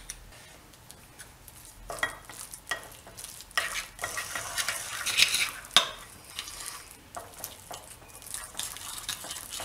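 Metal spoon stirring a thick, wet gram-flour marinade paste in a ceramic bowl: irregular wet scrapes and soft clinks against the bowl, starting about two seconds in.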